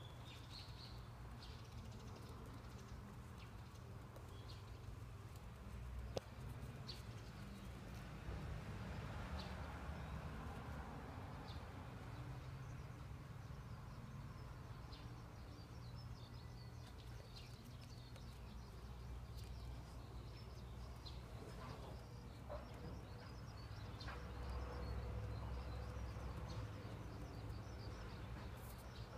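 Quiet outdoor background: a steady low rumble with faint, scattered high bird chirps and one sharp click about six seconds in.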